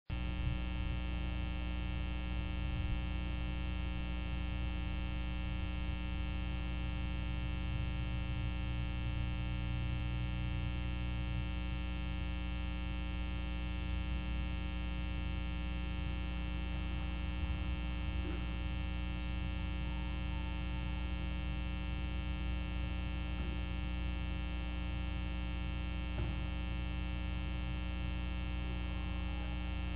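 Steady electrical hum and whine made of many fixed tones, unchanging throughout, with a couple of faint ticks.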